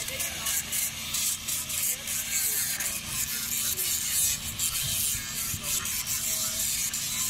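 Handheld electric power tool sanding a wooden carving: a rasping hiss that swells and fades with each stroke against the wood, over the steady hum of the tool's motor.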